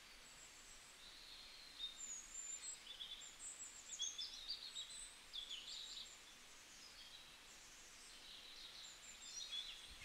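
Faint, high-pitched chirping of small birds over a low hiss, busiest from about two seconds in until about six seconds, with a few more chirps near the end.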